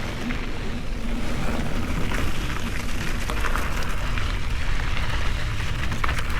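Mountain bike riding downhill on a dirt trail: wind buffeting the microphone over the tyres rolling on dirt and rock, with scattered small clicks and rattles from the bike.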